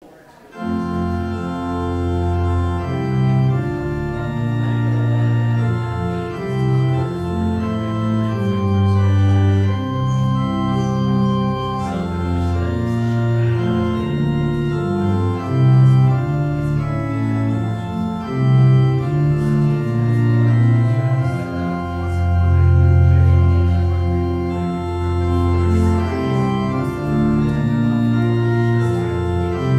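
Church organ playing a slow prelude of held chords over long sustained bass notes, starting about half a second in.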